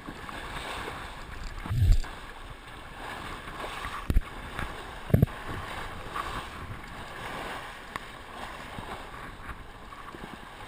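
Water rushing and splashing along the hull of a 1980 First 27 sailboat heeled over under sail, with wind buffeting the microphone. A few dull thumps, the loudest about two seconds in and others near four and five seconds, as the boat meets the waves.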